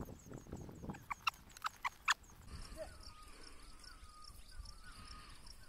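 A pair of oxen, just unyoked after ploughing, walking off over dry, stony ground: faint hoofsteps, with a few short sharp clicks in the first two seconds. After that, a faint wavering call carries on quietly.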